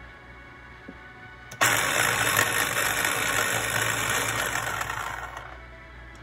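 Small electric food chopper switched on about a second and a half in, its motor running as the blade blends a liquid mango-jalapeño sauce for about four seconds, then winding down near the end.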